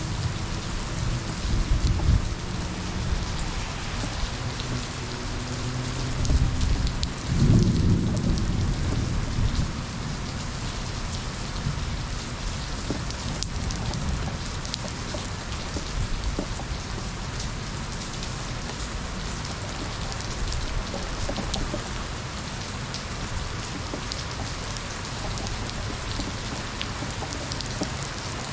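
Steady rain falling hard, with thunder rumbling twice: a short low roll about two seconds in and a louder, longer one around seven to nine seconds in.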